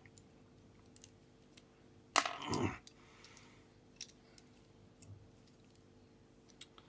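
Small plastic model-kit parts clicking as they are handled and fitted together: a few sharp, separate clicks, with one louder clatter about two seconds in.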